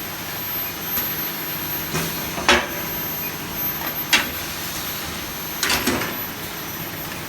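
Automatic feeder of an induction forging furnace working, with about three sharp knocks about a second and a half apart over a steady machine noise as workpieces are pushed through.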